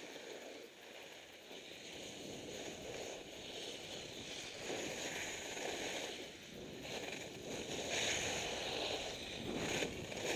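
Skis sliding and carving on groomed snow: a scraping hiss that swells and eases with the turns.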